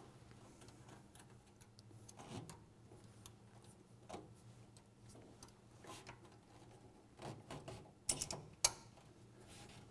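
Faint, scattered metallic clicks and ticks of pliers working a hose clamp onto a hose, with a couple of sharper clicks about eight seconds in. A low steady hum runs underneath.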